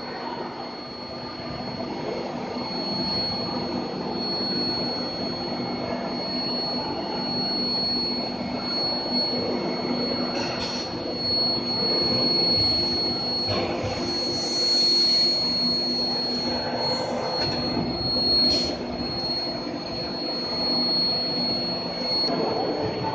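Induction quenching and tempering line for torsion bars running: a steady high-pitched whine over a steady machine hum, with a few brief clanks.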